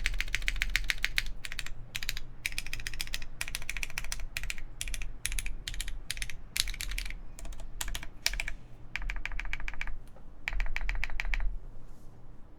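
Typing on a DaringRun POLYGON-7 mechanical keyboard with lubed Cherry MX Brown switches on a plateless 1.6 mm PCB and GMK keycaps: keys struck in quick runs broken by short pauses. The typing stops near the end.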